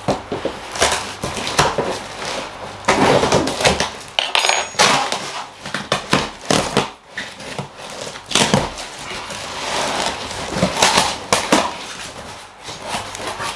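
A cardboard parcel being opened and unpacked by hand: irregular tearing, rustling and crinkling of cardboard and packing material, with knocks and clatter as the contents are handled.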